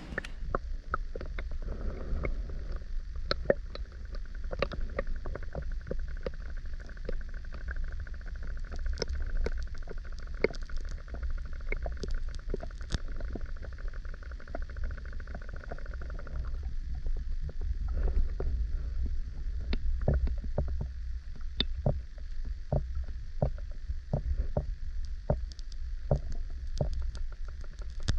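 Steady low rumble on the microphone with many irregular small clicks and knocks. A faint hiss higher up fades out about two-thirds of the way through.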